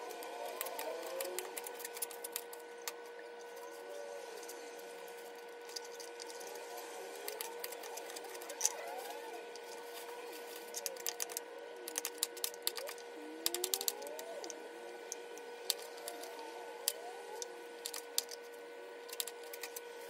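Thin plastic bag crinkling and rustling, with scattered light clicks, as chopped green bell pepper pieces are scooped by hand into it; the crackling comes in clusters over a steady faint hum.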